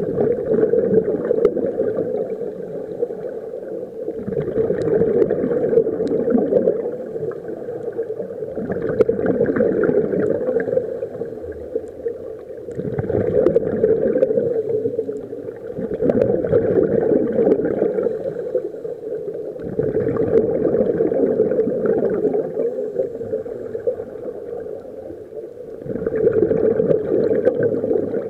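Scuba regulators venting divers' exhaled air underwater: a bubbling rush that comes in about seven surges, each two to three seconds long, roughly every four seconds with each breath.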